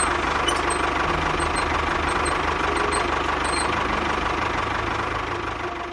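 Small engine of a miniature DIY bulldozer running steadily with a fast, even pulse, fading out near the end.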